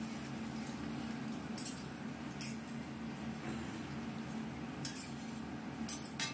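A metal spatula stirring curry in a stainless steel kadai, clinking against the pan about five times, the loudest just before the end, while water trickles in from a plastic jug. A steady low hum runs underneath.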